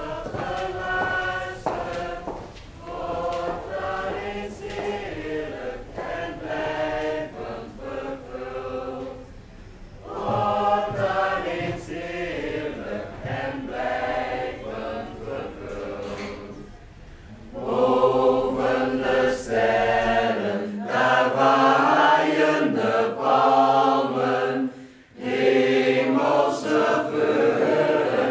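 A group of voices singing a slow chant in long sustained phrases.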